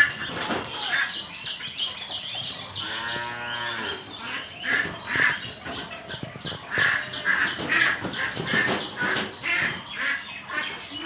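Farmyard animal calls: one low, drawn-out call with a rise and fall, about three seconds in, among a constant run of short, rapid chirps and squawks.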